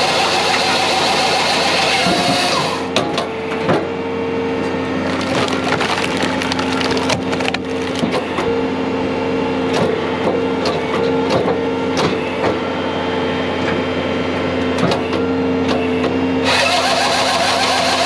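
Skid-steer-mounted firewood processor at work: a log being forced through the splitting wedge, the wood cracking and splintering many times over the steady hum of the loader's diesel engine and hydraulics. A louder full-range machine noise runs for the first couple of seconds and comes back near the end, when the processor's chainsaw bar is down in the next log.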